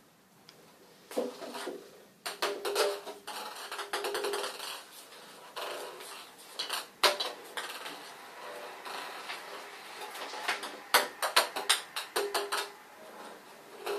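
Ping pong ball clattering and rolling around a bathtub as cats bat at it: irregular runs of light, quick clicks and taps starting about a second in. The busiest runs come about two seconds in and again near the end, with one sharp single tap about halfway through.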